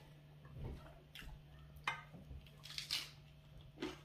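People eating injera by hand: a few short, soft, moist smacks and clicks of tearing bread and chewing, over a steady low hum.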